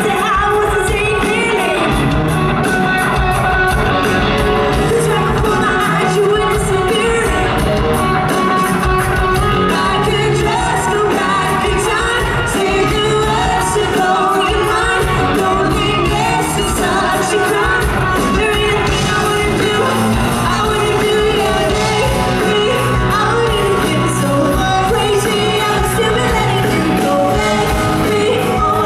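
Live pop-rock band playing a song, a woman singing lead into a microphone over drums and electric guitar, heard from the audience in a large hall.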